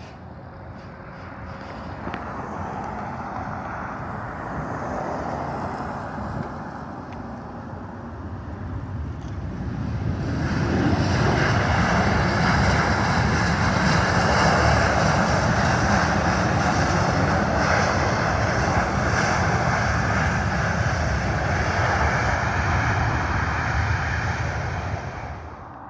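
Airplane engine noise building up, growing much louder about ten seconds in and holding as a loud steady rush, then cutting off suddenly near the end.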